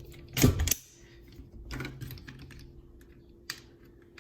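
Clicks and clacks of AR-15 rifle parts being handled and fitted together, with a loud cluster of clicks about half a second in and a few lighter ones later.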